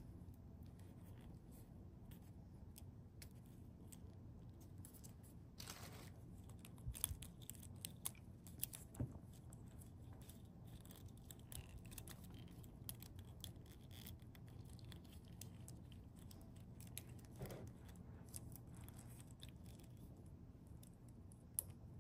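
Faint, scattered clicks and scratches of tiny plastic parts being handled, as miniature flower stems are pushed into little vases in a toy crate, with a few sharper clicks about seven to nine seconds in.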